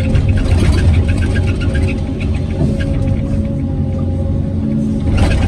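Hyundai R850LC excavator's diesel engine running steadily, a deep hum with a thin steady tone above it.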